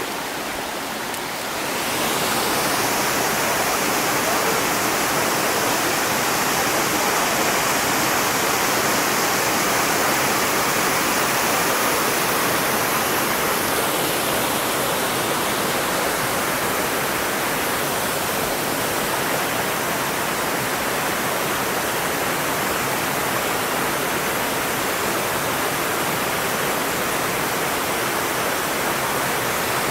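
Waterfall rushing: a steady, even wash of falling water that grows louder about two seconds in.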